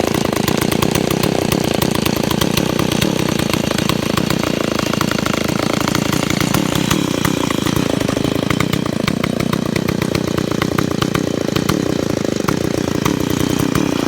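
Stihl MS 170 chainsaw's small two-stroke engine idling steadily just after a cold start.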